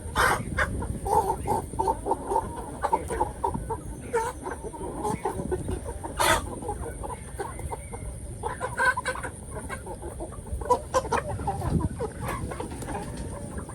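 A flock of chickens clucking, many short, irregular calls overlapping, with frequent brief clicks and knocks among them.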